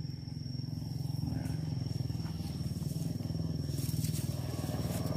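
A small engine running steadily with a low, rapid pulse, and an insect's steady high-pitched call over it.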